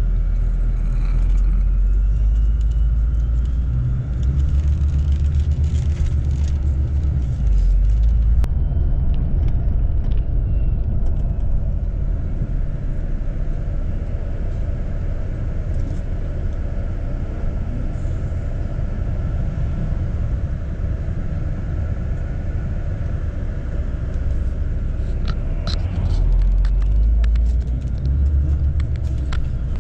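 Intercity coach on the road, heard from inside: a steady low rumble of engine and road noise, its depth shifting several times as the engine load changes.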